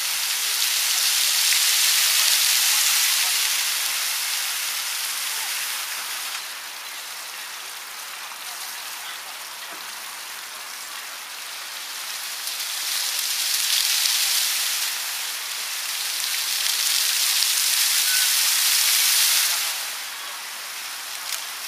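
Park fountain's water jets splashing with a steady hiss. The spray dies down about six seconds in, swells back up from about twelve seconds, and drops again near the end as the jets switch off and on.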